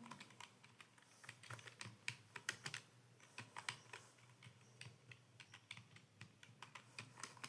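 Computer keyboard typing: rapid, irregular key clicks, several a second, quiet but steady.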